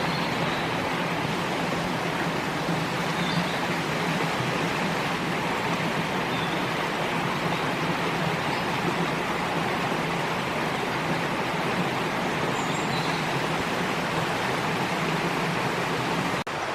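Stream water rushing steadily over rocks, a continuous even hiss, broken by a sudden cut near the end.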